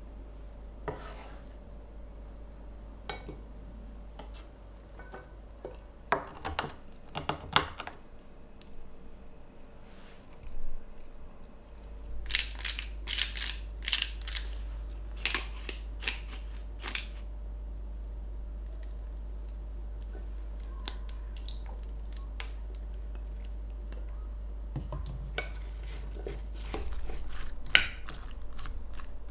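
Food-prep sounds in a kitchen: scattered clicks and scrapes of utensils and chopped vegetables, then a quick run of short scratchy strokes a little under halfway through as seasoning goes into a glass measuring cup, and a wooden spoon stirring against the glass near the end.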